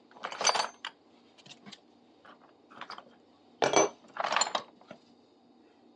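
Small metal hand tools clinking and clattering against one another as they are picked through and set down, in short bursts with louder clatters about half a second in and around four seconds in.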